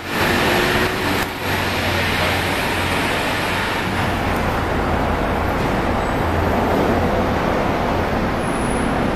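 Steady rumble and hiss of road traffic, vehicle engines idling and passing under a covered concrete roadway.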